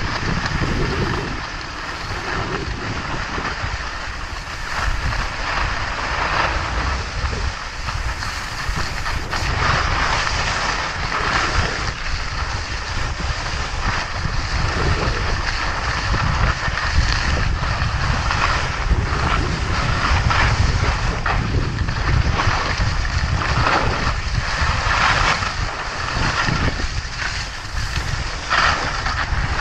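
Skis scraping and hissing over hard-packed snow during a downhill run, the scrape swelling and easing in irregular surges. Heavy wind rumble on the microphone from the skier's speed runs underneath.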